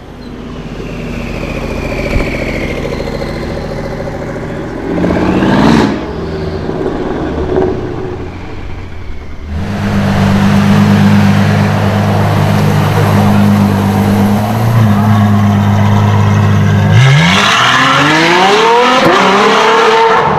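Modified car engines revving. The revs climb about five seconds in, then a steady engine note is held for several seconds, then the revs sweep up again near the end.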